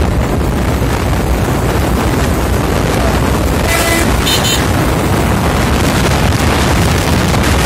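Wind buffeting the microphone of a moving motorcycle, with a steady roar of road and engine noise. A vehicle horn toots briefly about four seconds in.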